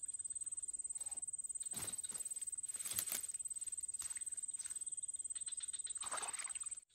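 Soft rustling and handling noises as a freshly caught fish is dealt with in the grass, loudest about two, three and six seconds in. A steady high-pitched trill that pulses rapidly runs underneath throughout.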